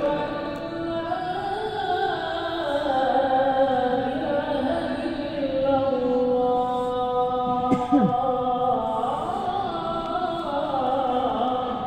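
A man's voice chanting one long, ornamented Arabic religious phrase, the pitch slowly rising and falling, with a brief click about eight seconds in.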